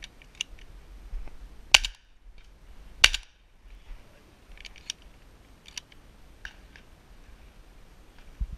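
Two loud shotgun shots about 1.3 seconds apart, each a sharp blast with a short echoing tail, followed by several fainter sharp clicks and pops.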